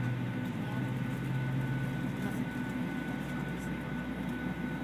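Steady cabin drone inside a Boeing 737-800 parked at the gate: a low hum with a faint high whine on top, from the aircraft's air and electrical systems running before pushback.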